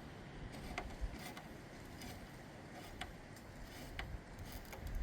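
Low wind rumble on the microphone, with a few faint scattered clicks of hand tools on metal.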